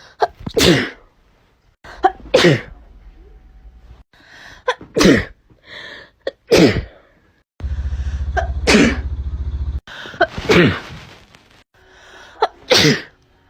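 A rapid series of about seven human sneezes, one every two seconds or so, cut together from different recordings. Each is a sharp, loud blast that falls in pitch, some preceded by a short intake of breath. A loud steady low hum runs under one sneeze near the middle.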